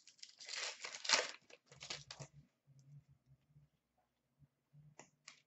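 Foil wrapper of an Upper Deck hockey card pack being torn open and crinkling for about two seconds, then a couple of faint clicks near the end.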